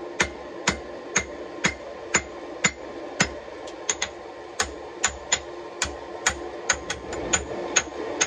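Hand hammer striking red-hot Damascus steel on an anvil, about two blows a second, each with a short metallic ring, while forging the tang end of a Bowie knife blade. The blows come a little quicker toward the end.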